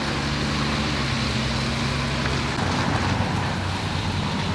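Street traffic: a car engine running close by over a steady hiss, its hum dropping a little lower about halfway through.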